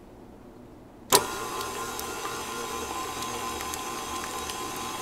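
Electric stand mixer switched on about a second in, its motor then running steadily with a constant whine as the flat beater blends butter, eggs and sugar in the bowl.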